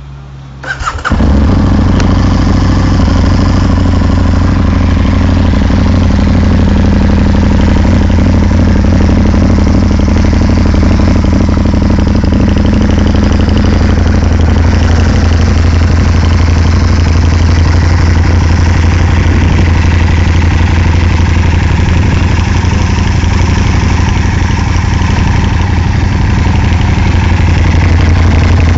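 2007 Aprilia Tuono 1000 R Factory's 60-degree V-twin, breathing through twin Akrapovič silencers, starts about a second in and then idles steadily.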